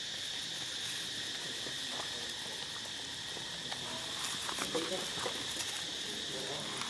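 Steady, high-pitched insect chorus in the forest. In the second half come scattered light crackles, like steps in dry leaves, and a few short vocal sounds.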